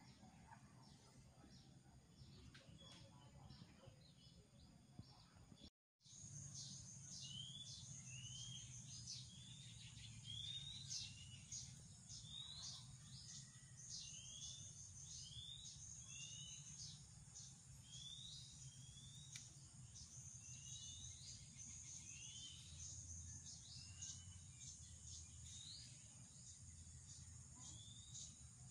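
Faint ambient sound of small birds chirping, many short downward-sweeping chirps a second, over a low steady background hum. The sound drops out for an instant about six seconds in, and after that the chirping is denser and a little louder.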